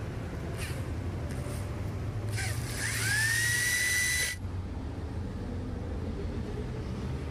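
Metal lathe running with a steady low hum. About two and a half seconds in, a high squeal with hiss rises in pitch, holds for about two seconds and cuts off suddenly as the tool cuts the metal workpiece.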